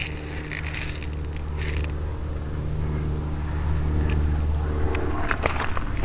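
A steady low droning hum with even overtones, like an engine running, with a few scattered clicks and rustles over it.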